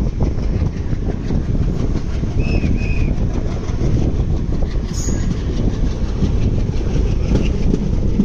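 Coal freight train rolling past, its wagon wheels clattering steadily over the rail joints in a continuous heavy rumble.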